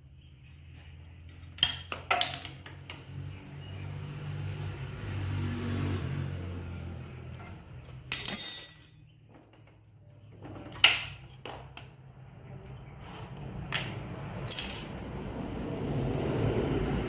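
Metal clinking and knocking several times, twice with a high metallic ring, over a low hum that swells and fades.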